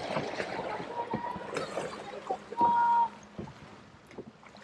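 Sea water lapping and gurgling against harbour rocks, with scattered small clicks and knocks. A short, steady high tone sounds for about half a second, roughly two and a half seconds in.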